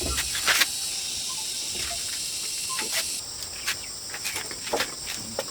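A steady high-pitched chorus of insects chirring, which shifts in tone about three seconds in. Scattered short knocks and taps sound over it.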